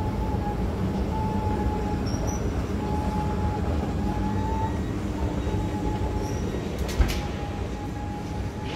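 Escalator machinery running with a steady low rumble and a thin whine that drops in and out. About seven seconds in there is a single sharp click.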